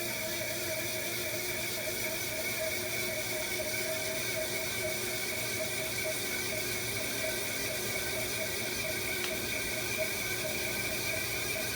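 Ventilation fan running with a steady whirr and a steady, slightly wavering whine over it: the abnormal noise that appeared after the fan was cleaned, put down to a lack of lubricant.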